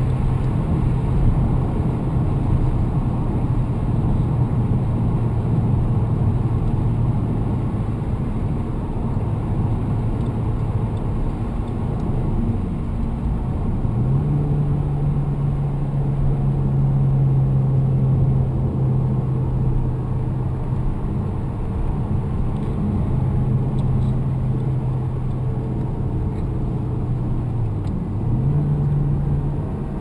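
Toyota Corolla T-Sport Compressor's supercharged engine and tyre noise from inside the cabin while cruising on a highway: a steady drone whose pitch dips and climbs back up twice, about halfway through and near the end.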